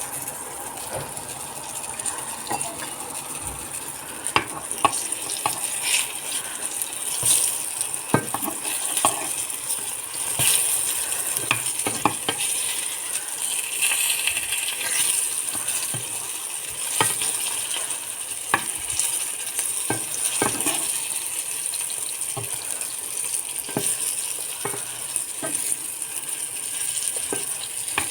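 Eggplant slices frying in hot oil in a pan: a steady sizzle, with frequent clicks and taps of a cooking utensil against the pan throughout.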